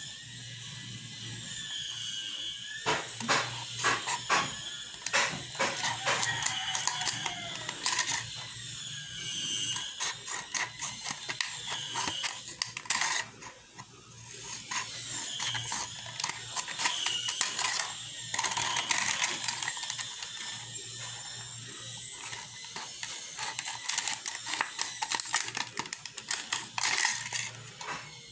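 Scissors cutting a plastic soft-drink bottle into strips: quick runs of snips and clicking blade strokes through the plastic, with a brief lull about halfway through.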